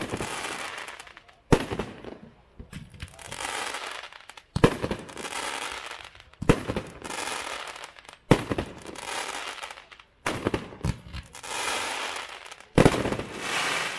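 Hot Fireworks' Monster Truck 16-shot aerial cake firing, each shot a sharp bang followed by a second or two of crackling that dies away. There are about seven shots, roughly every two seconds.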